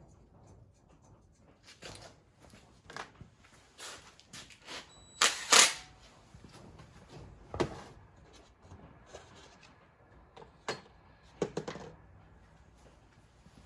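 Scattered clicks and knocks of small engine parts being handled, with a louder clatter about five seconds in.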